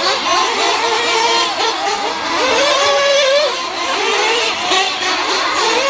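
Several nitro-powered radio-controlled off-road cars racing, their small glow engines revving up and down in overlapping high-pitched tones.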